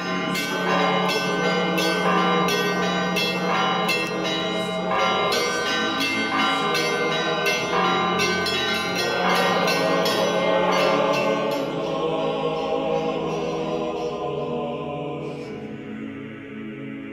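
Church bells ringing in a rapid peal: quick repeated strikes of smaller bells over the steady hum of a large bell, dying away over the last few seconds.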